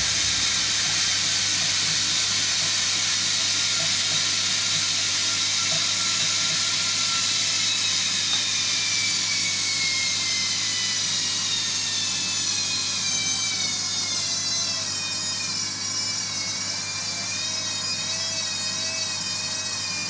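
Hotpoint washing machine's drum motor whining as it turns the drum in the distribution phase before the spin. The whine drifts slowly down in pitch over several seconds, then wavers up and down as the drum speed hunts while the load settles.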